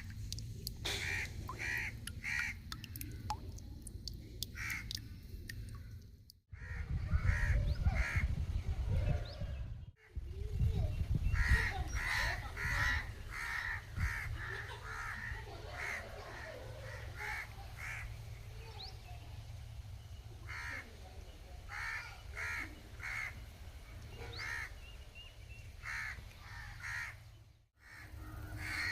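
Birds calling in short, repeated calls over a steady low rumble, which grows much louder from about six to thirteen seconds in. The sound cuts out abruptly for a moment three times.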